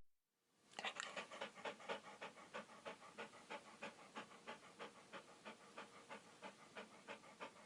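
Dog panting faintly and steadily, about three quick breaths a second, starting just under a second in.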